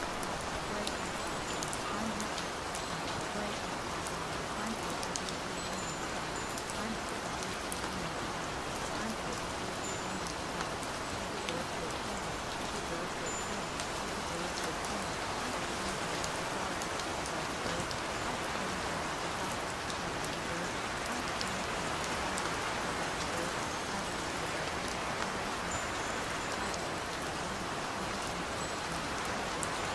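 Steady rain sound, an even hiss with scattered patter of drops, used as the masking track of a subliminal recording. Faint, low speech lies buried beneath it.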